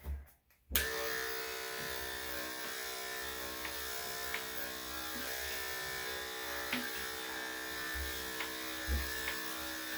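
Electric dog grooming clippers fitted with a 3/4-inch blade switch on under a second in and run steadily as they are pushed through a dog's coat, with a few faint ticks. The long blade is taking off very little hair.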